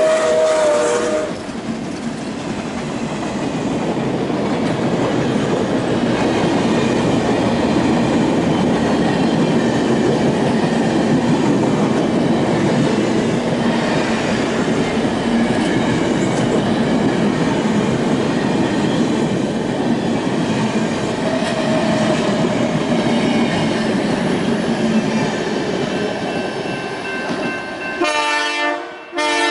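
Passenger cars of a steam-hauled train rolling past close by, a steady rush of wheel and rail noise with clickety-clack over the rail joints. The locomotive's steam whistle dies away about a second in, and near the end a grade-crossing bell rings in rapid strokes.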